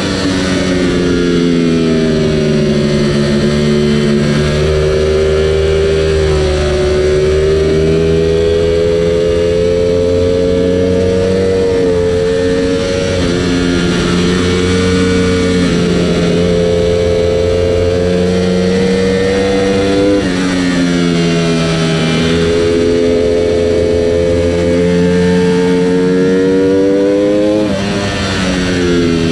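Ducati Panigale V4 R's 998 cc V4 engine heard onboard at race pace. The engine note climbs steadily as the bike accelerates, then drops sharply three times as the rider shuts off, brakes and changes down.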